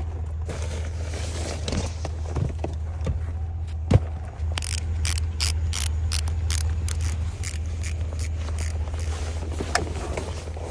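Clothing and gear being handled: fabric rustling and scraping, a sharp click about four seconds in, then a run of quick rasping strokes for several seconds, over a steady low hum.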